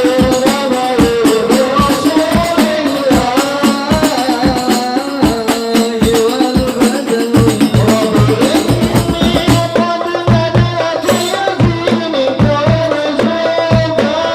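Music with fast, steady hand-drum percussion under a wavering melody; a deeper pulsing bass beat joins about halfway through.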